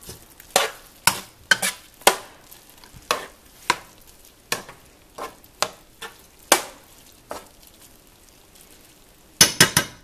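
A utensil stirring a thick mix of cooked grains, chicken hearts and vegetables in a deep enamelled pan, with irregular knocks and scrapes against the pan every half second or so over a faint hiss, and a quick run of knocks near the end.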